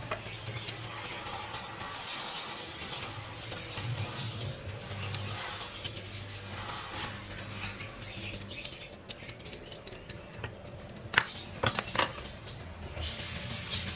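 Vegetable peeler scraping the skin off a raw beetroot, a rough rasping noise that comes and goes with the strokes. A few sharp clicks and knocks of utensils against the wooden cutting board come about eleven to twelve seconds in.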